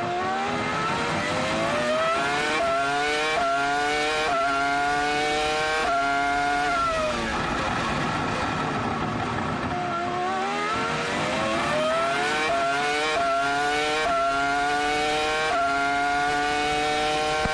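2004 Williams FW26's BMW V10 Formula 1 engine at full throttle, upshifting through the gears in quick steps of rising pitch. About seven seconds in, it drops through the downshifts while braking for a corner, then accelerates and upshifts through the gears again.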